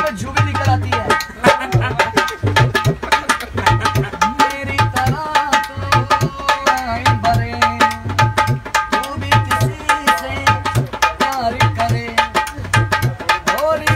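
Dholak, a two-headed barrel drum slung from a strap, played by hand in a steady rhythm: deep bass strokes under quick sharp slaps on the other head, with a man singing over it.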